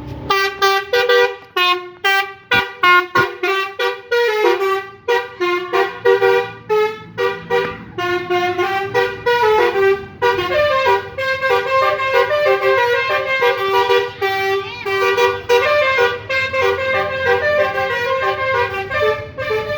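Bus telolet horn, a set of multi-tone air horns, playing a tune. For roughly the first half it sounds rapid short notes with gaps between them; after that the notes run longer and overlap into held chords.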